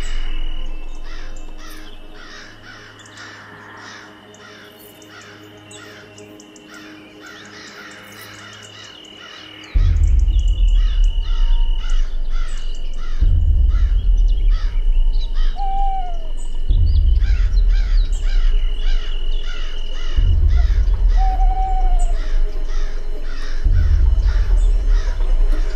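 Film score laid over forest ambience: rapid repeated bird calls and a steady high tone. About ten seconds in, a deep bass drone cuts in suddenly and swells in long pulses every three to four seconds.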